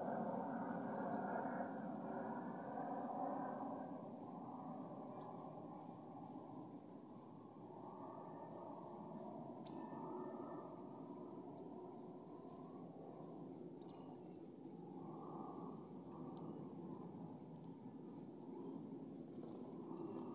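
An insect chirping in a steady rhythm, about two pulses a second, over low background noise that is louder in the first few seconds.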